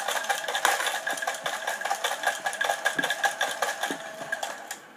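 Choken Bako dog coin bank's small electric motor and plastic gears whirring with rapid clicking as the toy dog lowers its head into the bowl and gobbles a coin, stopping abruptly near the end.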